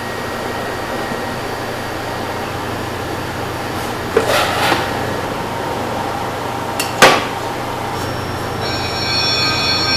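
Kitchen work over a steady low hum: a short clatter of knocks about four seconds in and one sharp, loud knock at about seven seconds.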